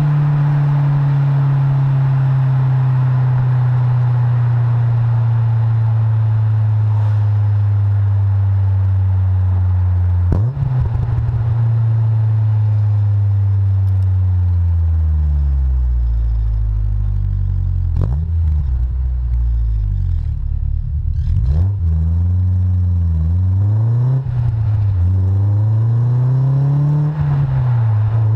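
Honda S2000's four-cylinder engine running through a Supersprint aftermarket exhaust. The engine note falls slowly for over ten seconds, with a few sharp clicks. Near the end the revs rise and fall several times in quick succession.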